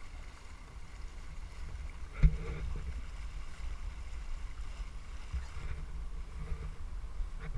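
Steady low rumble of wind and water on a camera mounted aboard a dragon boat, with one sharp knock about two seconds in.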